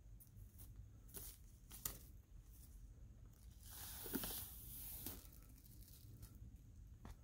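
Plastic shrink-wrap on a vinyl record sleeve being torn and crinkled: a few faint crackles, then a longer tear of about a second and a half in the middle.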